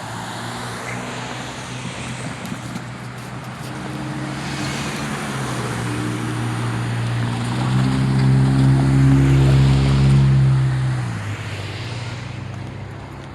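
A heavy engine hum passing close by, with a steady low pitch. It swells to its loudest about eight to eleven seconds in, then fades away.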